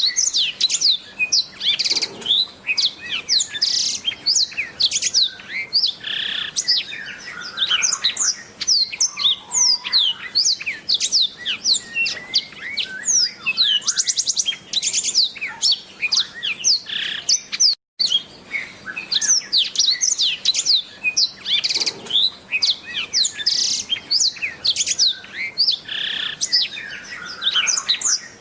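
Blackthroat (black-throated canary) singing a long, fast, continuous warbling song of quick descending whistles and trills, broken only by a split-second gap about two-thirds of the way through.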